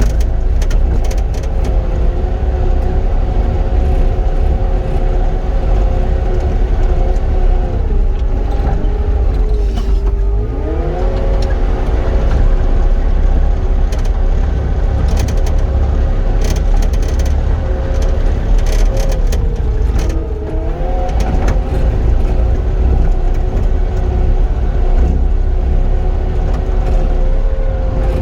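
Cat 259D compact track loader's diesel engine running steadily at working throttle while grading soil. Its pitch sags under load and climbs back twice, with scattered light clanks of the tracks and machine.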